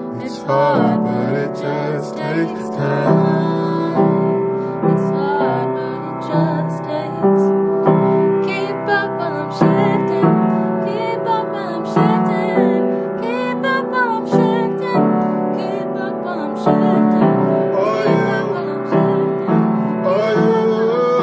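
Piano playing held chords as the accompaniment to a song, with a woman's singing voice coming in over it at times.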